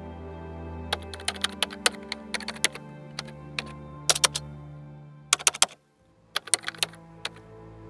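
Frost-brittle leaves crackling and crunching underfoot in irregular clusters of sharp clicks, over soft sustained ambient music. The sound cuts out briefly near the sixth second, then the crackling picks up again.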